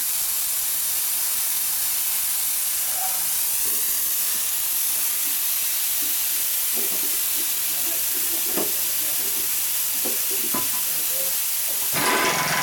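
A loud, steady hiss starts abruptly and runs on, with faint voices beneath it. Near the end it swells louder and a brief steady tone is heard.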